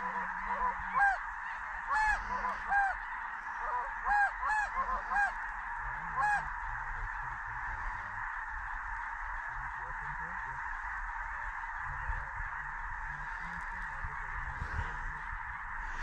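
Geese honking: a run of loud, high, rising-and-falling honks in the first six seconds or so, then only a steady background din.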